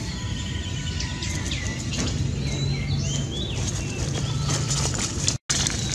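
Small birds chirping repeatedly, short calls that glide up and down, over a steady low hum. The sound drops out for an instant near the end.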